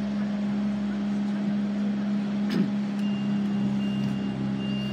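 A steady low engine hum of an idling vehicle, with a single sharp click about halfway through and a faint thin high-pitched tone coming in about three seconds in.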